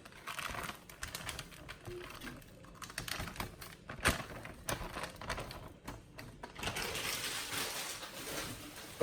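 Dry basmati rice grains rattling and rustling as a measuring cup digs into the bag, with a sharp click about four seconds in and a denser rush of pouring grains near the end.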